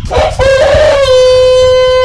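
Rooster crowing a long crow: a rough, broken opening that settles about a second in into one long, steady held note.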